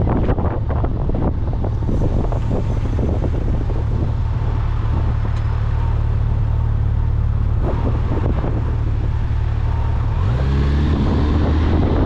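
A vehicle's engine running on the move, with gusty wind buffeting the microphone. About ten seconds in, the engine note rises.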